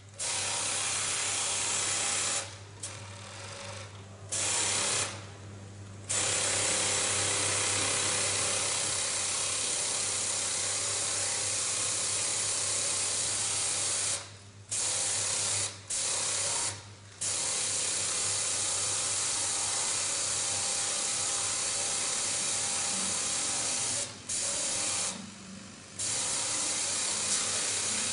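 Heavy-duty mattress flanging machine's high-speed double-needle Pegasus sewing head running at speed as a thick mattress panel is fed through, as a steady whir. It stops and restarts several times in runs of a few seconds, while a low steady motor hum carries on through the pauses.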